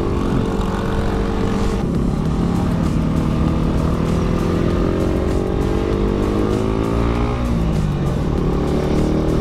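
Yamaha Sniper 150i's single-cylinder four-stroke engine pulling uphill on its 14-41 sprocket gearing. The pitch dips about two seconds in, rises slowly as the bike gains speed, then dips again near the end and holds steady.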